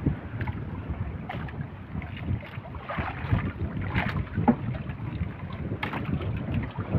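Wind buffeting the microphone over water lapping, with a few light knocks; no engine is running.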